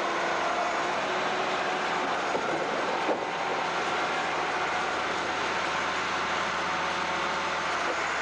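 Large farm tractor running steadily, with a dense mechanical rumble and clatter and a single knock about three seconds in.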